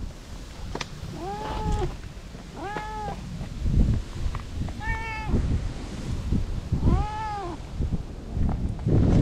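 Ginger-and-white stray cat meowing four times, about two seconds apart, each call rising and falling in pitch.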